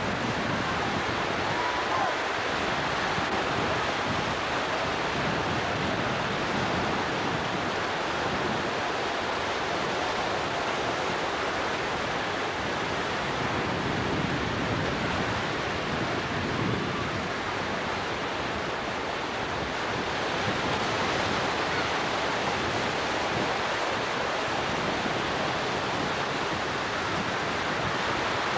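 Ocean surf breaking and washing up the beach: a steady rushing of waves.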